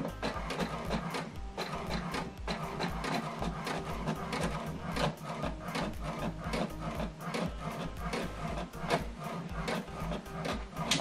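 HP DeskJet inkjet printer printing a colour page: the print carriage sweeps back and forth with repeated clicks and whirs as the paper feeds out line by line.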